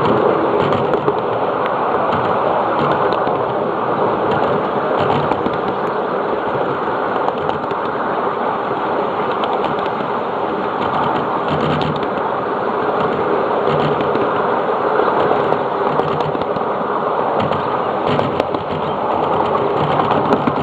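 Miniature 7.5-inch-gauge ride-on train running along its track: a steady rolling rumble and rattle of wheels on rails, with a few faint clicks.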